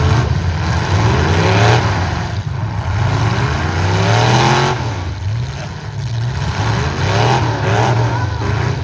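Several demolition-derby stock trucks' engines running loud, revving up again and again with their pitch rising, as the trucks accelerate to ram one another.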